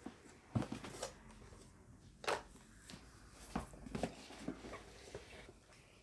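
Box and packaging being handled and set down: scattered light knocks, taps and rustles, the sharpest about half a second and two seconds in.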